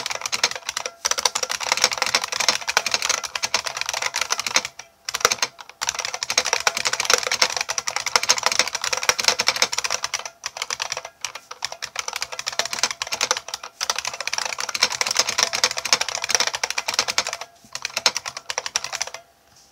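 A 1990 IBM Model M keyboard's buckling-spring keys clicking under fast touch typing of about 120 words a minute, with a few brief pauses; the typing stops near the end.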